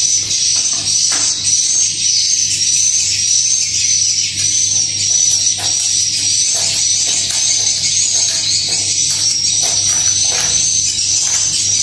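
Swiftlets twittering continuously in a high, wavering chatter inside a swiftlet house, over a steady low hum.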